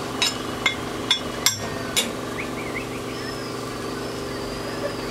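Five sharp metallic clanks about half a second apart in the first two seconds, metal utensils striking metal at a dosa griddle, over a steady machine hum.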